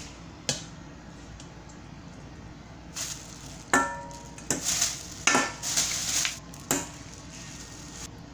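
Large round ice balls set down one after another into a stainless steel bowl of noodles: about five clunks over three seconds, some with a brief metallic ring from the bowl.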